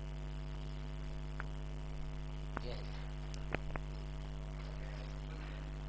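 Steady electrical mains hum, with a few short faint clicks or taps a little past the middle.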